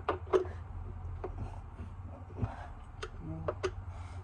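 Irregular sharp clicks and taps of hand tools on a garbage disposal's metal mounting hardware as its screws are tightened against the sink flange, over a steady low hum.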